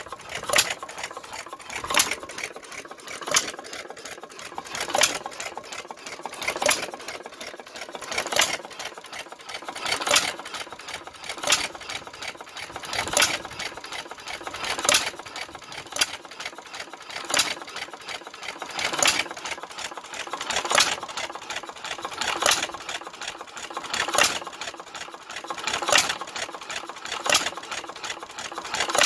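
1914 International Harvester Famous 1 hp hopper-cooled hit-and-miss engine running: a sharp firing bang about every one and a half to two seconds, with quick light mechanical clicking between the firings.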